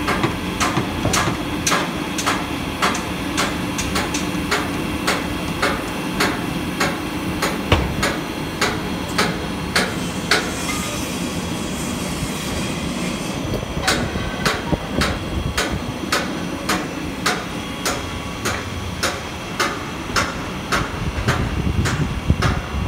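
Tower crane machinery running with a steady mechanical clicking, about two and a half knocks a second, over a low rumble. The clicking breaks off for a few seconds midway under a hiss, then resumes.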